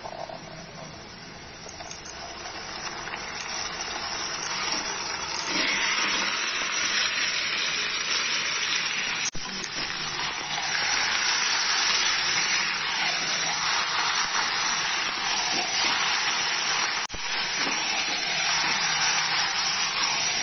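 Marinated chicken pieces and sliced onions sizzling in hot oil in a kadai: a steady frying hiss that grows louder over the first five or six seconds as the chicken goes in, then holds.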